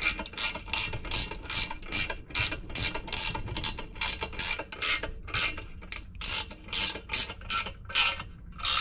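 Ratcheting box-end wrench clicking as a bolt is tightened with quick short swings, a burst of ratchet clicks on each back-stroke at about three a second.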